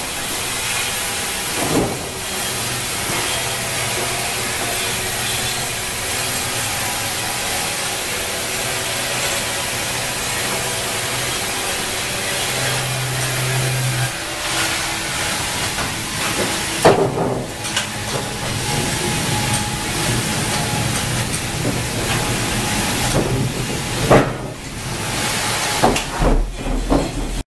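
Wravor band saw mill running with a steady, loud hiss of sawing, over a faint low hum, with a few sharp knocks of wooden boards being handled, the loudest about two-thirds of the way in.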